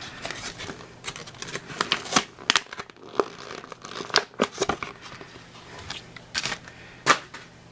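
Paper and plastic packaging crinkling and rustling as the contents of a trading-card box are handled, with irregular sharp clicks and taps and a louder click near the end.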